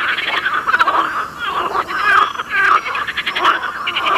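A dense chorus of calling frogs, many voices overlapping, with rapid pulsing trills and croaks.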